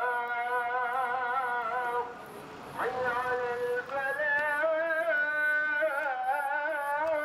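Solo melismatic chant in a Middle Eastern style: long held notes with a wavering ornamented pitch. It breaks off briefly about two seconds in, comes back with a quick upward slide, and carries on in held, wavering phrases.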